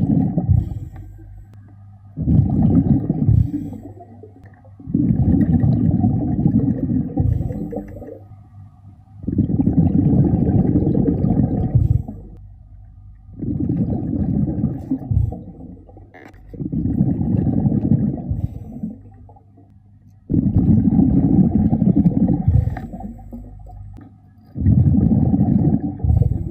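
A diver's exhaled air bubbling out of an underwater breathing regulator, heard underwater as a rumbling gurgle. There are about seven exhalations, each lasting a second or two and a half, with quieter pauses between them for the in-breaths.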